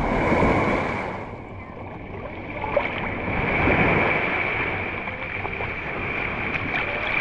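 Shallow surf washing and sloshing around a camera at the waterline, swelling twice as small waves roll in, with splashing from a dog wading through the shallows.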